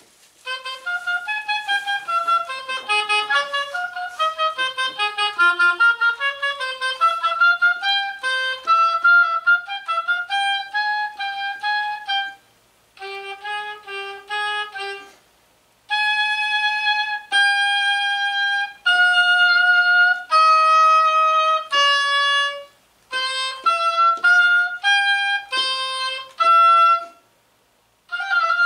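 Solo oboe playing quick runs of short notes, then after brief breaks a phrase of longer held notes and more quick figures; one melodic line, with no accompaniment.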